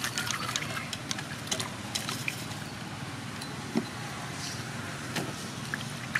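Water sloshing and splashing in a metal basin as hands wash bunches of long beans and leaves, with irregular splashes and drips over a steady low background hum.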